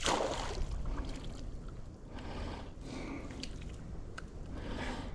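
Water splashing in several short bursts, the loudest right at the start, over a low rumble.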